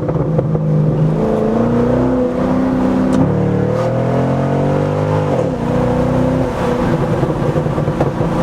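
C6 Corvette V8 with a straight-pipe exhaust (mufflers deleted) idling, then revved: the engine note climbs steadily for about four seconds and falls sharply back to idle about five seconds in.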